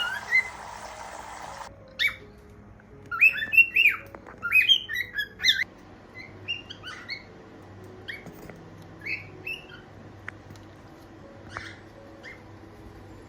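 Cockatiels chirping and squawking in short calls, a busy cluster of calls in the first half, then scattered single chirps. A steady hiss underlies the start and cuts off abruptly just under two seconds in.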